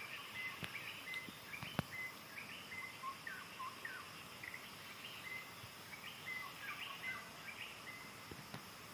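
White-rumped shama singing a varied run of short whistled notes, some held level and some sliding up or down, over a steady hum of insects. A sharp click sounds about two seconds in.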